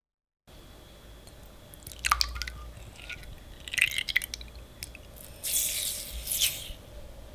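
Granulated sugar poured into a glass bowl of egg whites, a short grainy hiss about three-quarters of the way through, after a few scattered soft clicks and taps.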